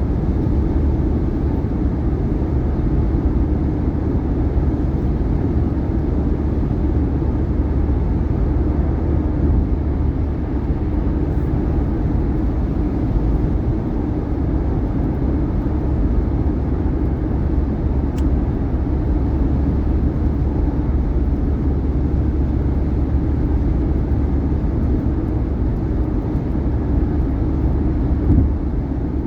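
Steady tire and road noise from a 2018 Subaru Outback driving at highway speed, a constant low rumble with no distinct bumps.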